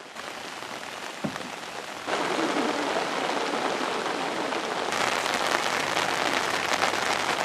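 Rain falling and splashing on surfaces as a steady hiss, growing louder in two steps, about two seconds in and again near five seconds.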